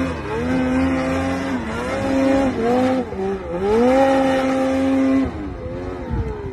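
Snowmobile engine revving hard in deep snow, its pitch rising and falling with the throttle. A little after five seconds the revs drop off and wind down.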